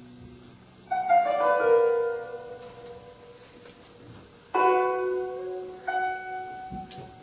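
Background piano music: a quick run of notes about a second in, then a chord struck a little past the middle and another soon after, each left to ring and fade.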